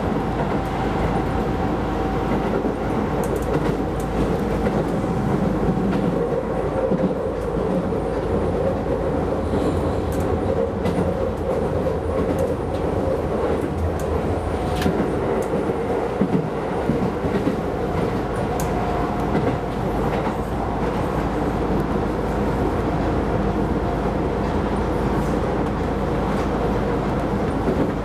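Keisei Line rapid electric train running along the track, heard from inside the car: a steady rumble with a faint hum and occasional sharp clicks of the wheels over rail joints.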